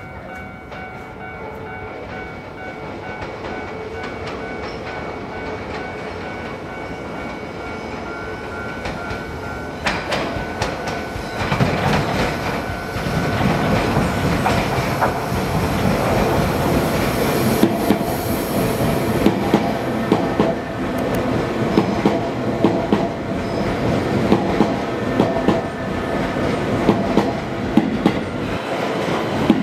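Keisei AE-series Skyliner electric train approaching and pulling into the platform. Its running noise grows steadily louder over about twelve seconds. In the second half come regular clicks of wheels over rail joints as the cars roll past and slow.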